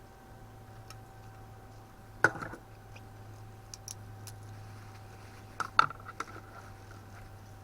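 Tableware clinking lightly during a meal: one sharp clink about two seconds in and a few quick clinks near the six-second mark, over a faint steady hum.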